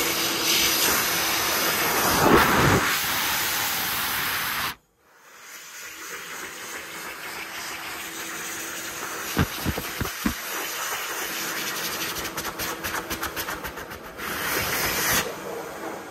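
Hokwang (Dolphin) hand dryer blowing, a loud steady hiss of air with a faint motor hum under it, which cuts off abruptly about five seconds in. A quieter rush of air follows, with a few short knocks around the middle and a louder burst of air near the end.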